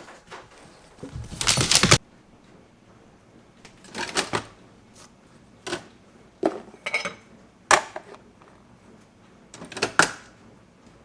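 A string of separate clicks and clattering knocks at irregular intervals, with the longest and loudest rattle lasting about half a second, a second and a half in.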